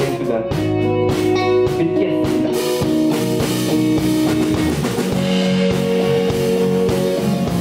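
Live rock band playing: electric guitars and bass guitar over a drum kit. The band grows fuller, with a wash of cymbals, about two and a half seconds in.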